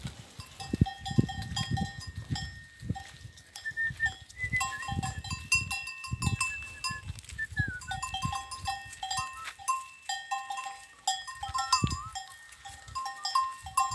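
Small bells on a herd of goats and sheep clinking irregularly as the animals trot through dry scrub, with the thud of hooves and footsteps on dry ground underneath.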